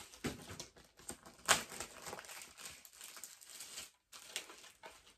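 Packaging being handled and pulled apart by hand to free a cassette tape: an irregular run of crinkling, rustling and small taps, with one louder snap about a second and a half in, quieter over the last second.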